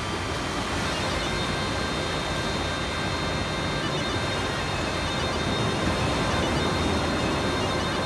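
Sea surf, waves breaking on a beach in a steady, continuous rush. Faint held notes of tulum bagpipe music sound underneath.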